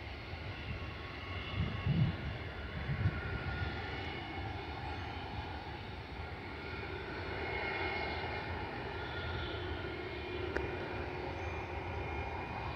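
Airbus A320neo jet airliner's engines heard at a distance as it rolls down the runway: a steady rushing hum with faint high whine, swelling slightly midway. A few low thumps about two seconds in.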